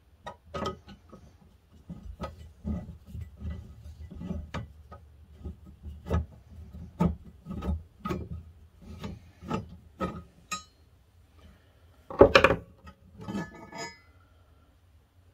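Screwdriver turning a rusty screw out of an andiron leg against a nut held in pliers: a run of irregular scraping clicks, then a louder clatter about twelve seconds in as the loosened parts and tools are handled.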